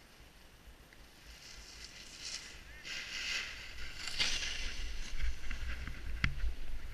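Edges sliding and scraping over packed snow in bursts as the rider turns down the run, with wind rumbling on the microphone and growing louder as speed picks up. A single sharp click near the end.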